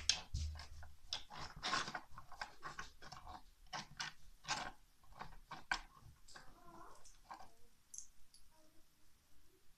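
Small plastic Lego bricks clicking and clattering as they are handled and pressed together on a tabletop: a quick, irregular run of small clicks that thins out over the last few seconds.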